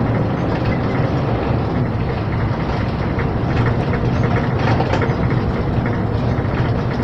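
Scania 440 truck with automatic transmission, heard from inside the cab as it drives on a dirt road: a steady engine drone and road noise, with frequent short rattles and knocks.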